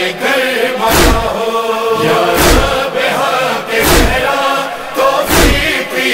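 An Urdu noha lament: voices chanting together in a drawn-out line between the lead reciter's verses, over a deep thump about every one and a half seconds.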